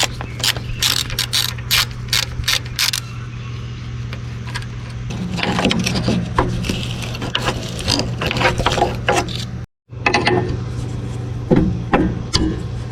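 Ratchet wrench clicking in a quick run of strokes as a hydraulic line fitting is worked loose, then metal tools clattering, over a steady low hum.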